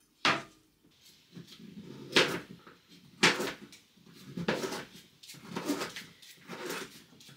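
Knocks and clatter of kitchen things being handled, about six over the stretch, roughly one a second.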